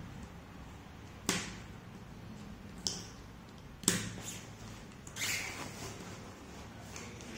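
Jigsaw puzzle pieces being handled and set down on a table: three sharp taps spread over a few seconds, then a softer scuff.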